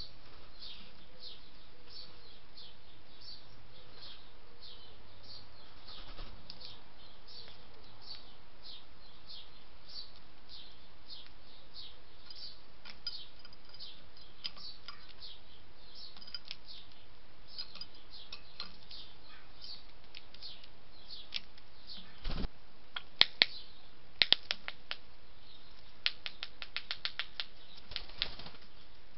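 Juvenile European starlings begging, a run of short, high, falling chirps about twice a second. In the last several seconds sharp taps and a quick rattle of clicks, the loudest sounds, come as the birds peck and flutter at the feeding dish.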